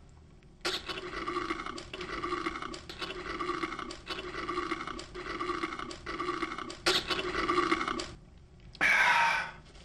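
Long slurp of a soft drink sucked up through a plastic straw from a fast-food paper cup, running steadily for about seven seconds. A brief second sound, falling slightly in pitch, follows near the end.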